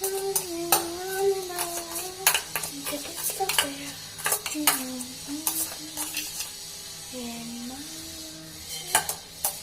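A spoon stirring and scraping in a bowl, mixing slime, with frequent sharp clicks of the spoon against the bowl. A person hums a wavering tune over it.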